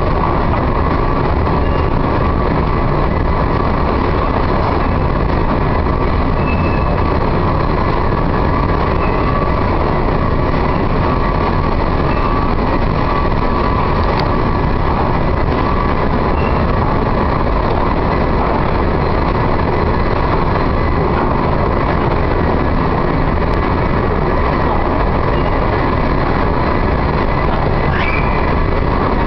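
Wheaton Metro station's long escalator running: a steady mechanical rumble with a faint constant whine, and now and then a brief faint squeak.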